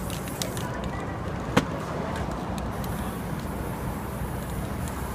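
Steady street traffic noise, with one sharp knock about a second and a half in.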